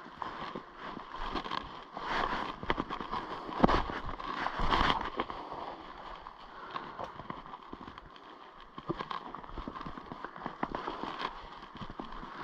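Footsteps through bush: twigs and dry leaves crackling and snapping underfoot in an uneven walking pattern, loudest for a few seconds early on.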